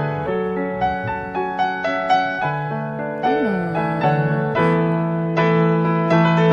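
Background piano music: a slow melody of struck notes that ring and fade over held lower notes.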